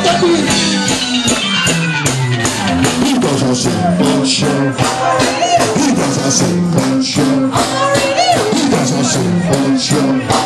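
Ska band playing live and loud, with a steady beat.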